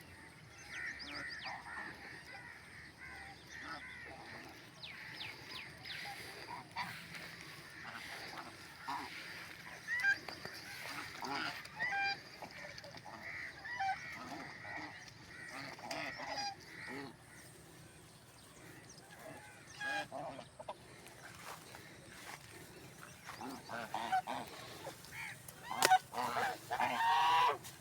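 A flock of domestic white geese honking and calling on and off, with a louder cluster of honks near the end.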